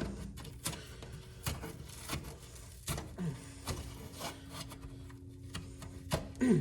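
Scattered light clicks, knocks and rubbing of hands working over greasy mower parts, with a faint steady hum under them.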